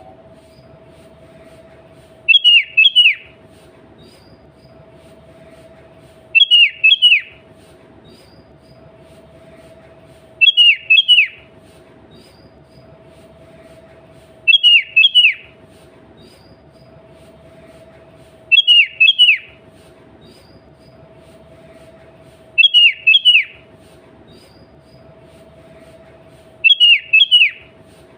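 Sooty-headed bulbul calling: a short, loud phrase of three quick notes, repeated about every four seconds, seven times. A faint steady hum runs underneath.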